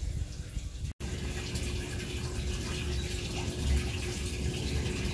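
Water running steadily in a hydroponic system, pouring from the return drain into the nutrient reservoir barrel, with a faint steady hum underneath.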